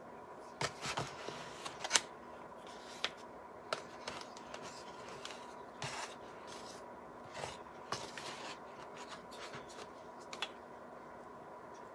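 Plastic knife scooping thick white paste from a plastic tub and stirring it in a plastic bowl: soft scrapes and scattered sharp clicks of plastic on plastic, the loudest click about two seconds in, over a faint steady hum.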